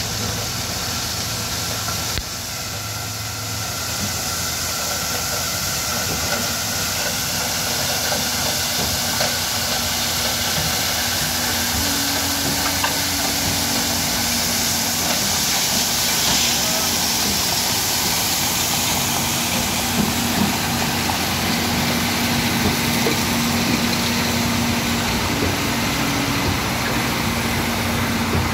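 Heavy diesel road machinery, a tipper truck and a road roller, running steadily under a constant loud hiss as stone chips are spread over fresh tack coat.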